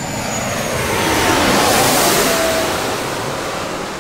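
Jet aircraft passing over: a rushing roar that swells to a peak about two seconds in and then fades away, with a faint whine falling in pitch as it goes by.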